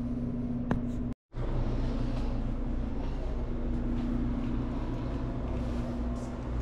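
Steady hum of a hotel room's through-wall air conditioner running: one constant low tone over a fan's steady noise. It cuts out for a split second just after a second in.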